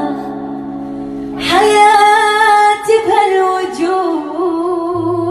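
A slow song sung by a woman. The first second and a half is a held accompaniment chord, then her voice comes back in with a drawn-out, wavering melody.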